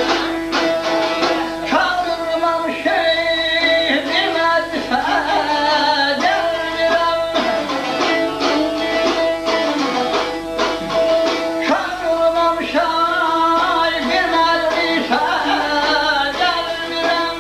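Saz, the long-necked Azerbaijani ashiq lute, strummed rapidly with a plectrum in a dense, driving rhythm. A singing voice comes in over it from about two seconds in, and again from about twelve seconds.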